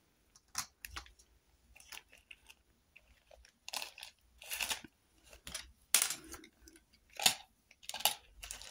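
Small objects being handled: a scattered series of short clicks and rustles, the loudest about six and seven seconds in.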